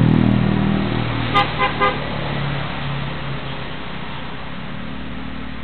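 A road vehicle's engine passing by and fading away. About one and a half seconds in, a horn gives two short toots about half a second apart.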